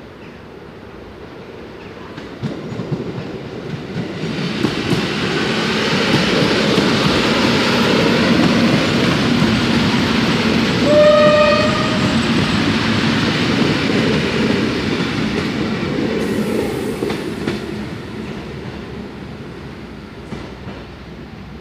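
EN71 electric multiple unit running past on the track: the wheel and rail rumble builds, holds, then fades away as the train goes into the tunnel. Its horn sounds once, briefly, about halfway through.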